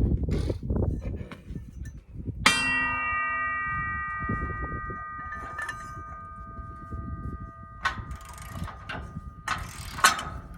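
Metal on the disc harrow struck hard about two and a half seconds in, ringing on like a bell for several seconds; a lighter strike near eight seconds sets it ringing again, and sharp metal clinks follow near the end. Low rattling and clattering from the work comes before the first strike.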